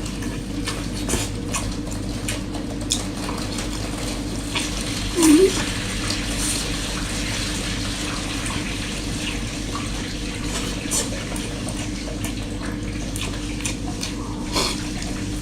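Close-up eating sounds: wet chewing and slurping with scattered short wet clicks over a steady hiss, and a brief rising hum about five seconds in.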